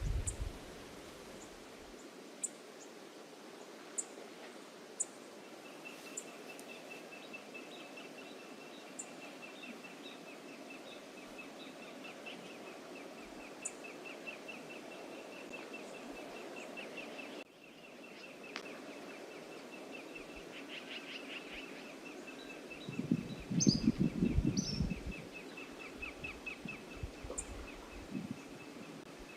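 Outdoor ambience: a steady hiss of wind and ocean, with a rapid high-pitched chirping trill that starts a few seconds in and runs on. About three-quarters of the way through there is a short burst of louder low rustling or buffeting, with a few brief rising chirps.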